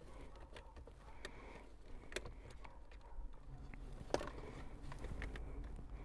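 Faint clicks and taps of small plastic wiring connectors being handled and pushed together, with the sharpest click about four seconds in.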